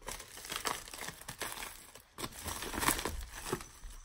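Packaging being opened by hand: irregular crinkling and rustling with small tearing crackles, loudest just before three seconds in.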